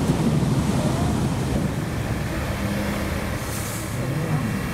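Engine and road rumble heard from inside a moving passenger vehicle, low and steady, with a brief hiss about three and a half seconds in.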